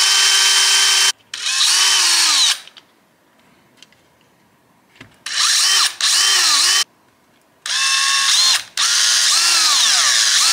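Cordless drill running in about five short bursts as it bores through a plastic mounting tab into a wooden backing board, its motor pitch rising and falling with the trigger. There is a pause of a couple of seconds in the middle.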